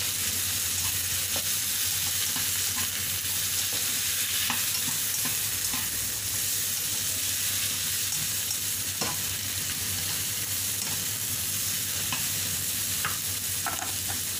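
Carrots and French beans sizzling steadily in a hot frying pan as they are stir-fried, with occasional short scrapes and taps of the spatula against the pan.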